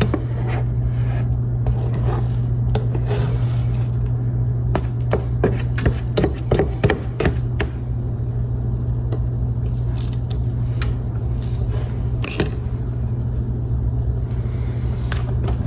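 A cooking utensil clicking and scraping against a pan in irregular strokes, busiest around the middle, over a steady low hum.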